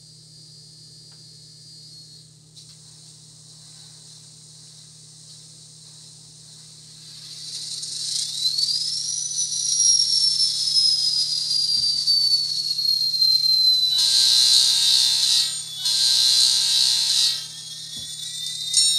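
Diesel locomotive sounds from an ESU LokSound Select Direct Micro decoder, played through a tiny 10 mm speaker in an N scale SD70, so they sound thin with almost no bass. A steady air hiss comes first. About eight seconds in, a whine rises sharply and then slowly falls, and near the end the horn gives two blasts.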